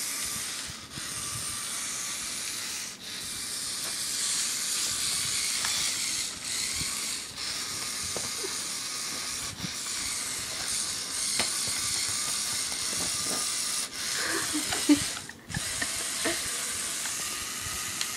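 Lego Power Functions electric motors and plastic gear train whirring as the four-wheel-drive model car drives. The sound cuts out briefly several times as the motors stop and restart. A sharp knock comes about fifteen seconds in.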